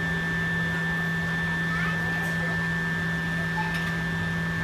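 Steady mechanical hum with a constant high-pitched whine above it, the even drone of a running machine such as a room fan or air conditioner. Faint child voices come in briefly now and then.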